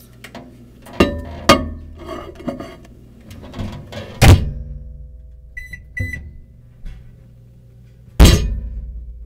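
Microwave oven being worked: clattering knocks, then the door shut with a loud thunk, two short keypad beeps, and another loud thunk followed by a low hum.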